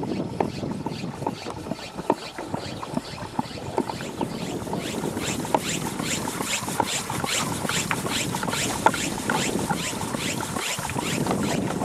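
Hand pump of a plastic pressure sprayer being worked up and down, making a quick, regular stroke sound several times a second. The strokes become plainer from about four seconds in.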